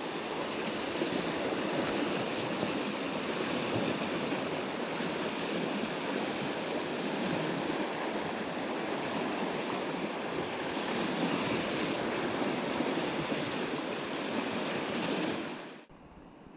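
Fast river water rushing over rapids, a steady roar that cuts off suddenly near the end.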